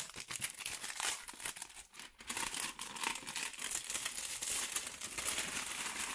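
Clear plastic wrapping crinkling and crackling as it is pulled off a boxed card set and handled, with a brief lull about two seconds in.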